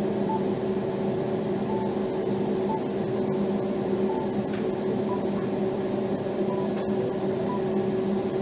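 A Samsung Galaxy S23 Ultra ringtone playing: a steady low drone of two held tones, with short soft higher blips about every second at uneven intervals.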